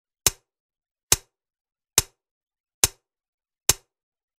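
Five sharp percussive clicks, evenly spaced about one every 0.85 seconds with dead silence between them: the sparse opening beat of an electronic music soundtrack.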